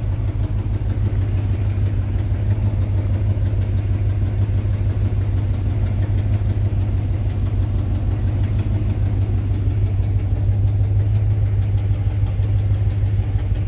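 The 383 stroker V8 of a 1966 Chevy C20 pickup idling steadily, heard from inside the cab as a low, even hum.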